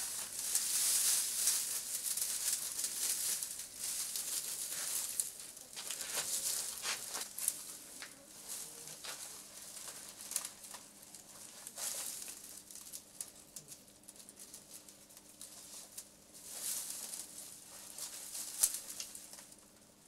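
Dry twigs rustling and crackling as a bundle of them is handled and bound into a broom, with many sharp snaps among the rustle. A faint steady hum comes in about seven seconds in.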